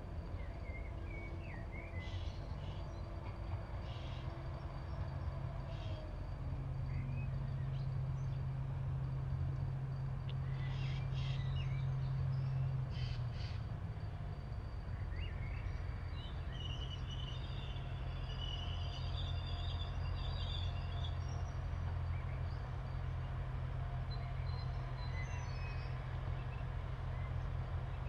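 ATR 220 diesel multiple unit running with a steady low engine drone, louder over the first few seconds as it pulls in, then holding as it stands at the platform. Birds call over it several times in the first half.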